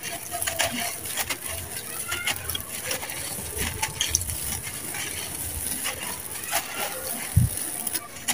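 Dry sand-cement chunks crumbling and crunching in bare hands, gritty crackles with loose sand pouring down; a dull thump near the end.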